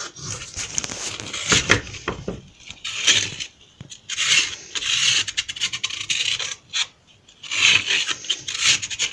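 Sandpaper rubbed by hand against the edge of a wooden drawer piece, a rasping hiss in uneven groups of back-and-forth strokes.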